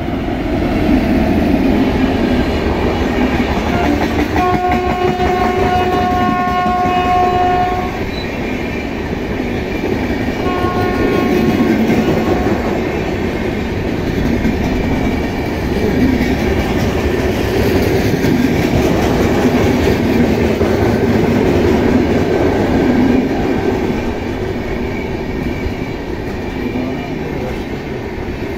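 Indian Railways express train passing at speed. The electric locomotive's horn sounds twice, a long blast about four seconds in and a shorter one about ten seconds in, over the steady rumble and clatter of the coaches' wheels on the rails.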